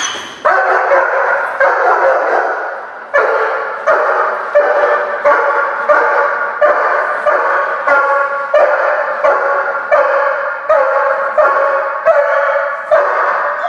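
German Shepherd barking steadily and repeatedly, about one and a half barks a second. It is a trained protection dog's alert bark, holding a found intruder at the bathroom door.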